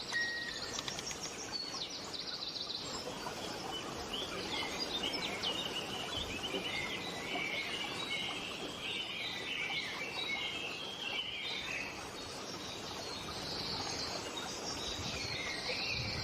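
Birds chirping and singing in many short, quick calls over a steady hiss, thickest through the middle of the stretch.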